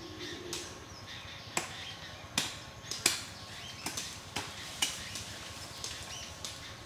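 A string of sharp, irregular clicks and snaps, about ten of them, over a steady outdoor hiss, with a few faint short chirps among them.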